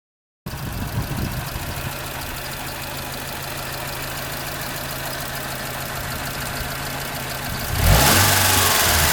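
Mitsubishi Pajero Mini engine at 200,000 km idling with an abnormal ticking from the tappet (valve cover) area, which the owner later traced to a slack timing belt letting the cam turn on its own. It starts about half a second in and gets suddenly louder about eight seconds in.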